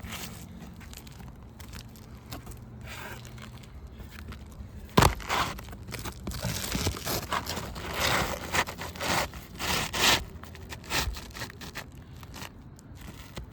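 Asphalt roof shingles being handled and slid into place. One sharp knock comes about five seconds in, followed by several seconds of gritty scraping and rustling.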